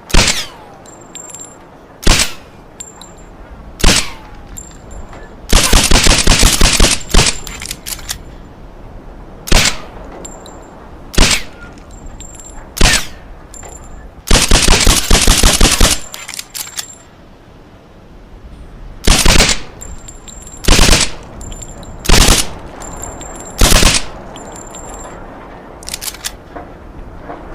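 Semi-automatic pistol with a suppressor firing: single shots about every one and a half to two seconds, broken twice by rapid strings of about five shots a second.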